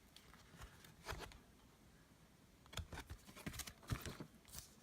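Faint, irregular clicks and scratches of cardboard board-game pieces being handled: punch-out token sheets and cards being shuffled about.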